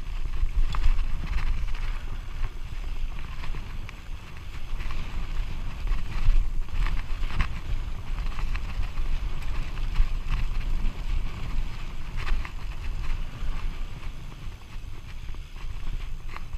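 Mountain bike rolling downhill over a rough dirt and gravel track: wind buffeting the camera's microphone as a steady low rumble, with the tyres crunching on loose stones and the bike rattling over bumps in short, irregular clatters.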